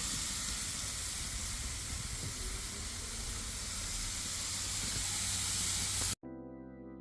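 Steaks sizzling on a hot grill, a steady dense hiss. About six seconds in it cuts off suddenly and keyboard music begins.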